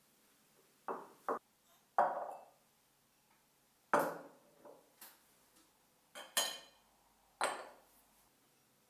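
Dishes or kitchen utensils being handled: about eight short clinks and knocks, some in quick pairs.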